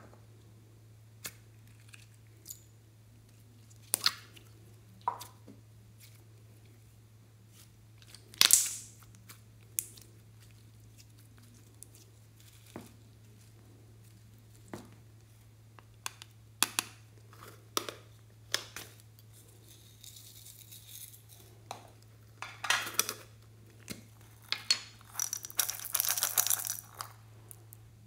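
Slime and toppings being handled in a glass dish: scattered sticky pops, clicks and taps, then near the end a dense clatter of small plastic beads poured into a hand.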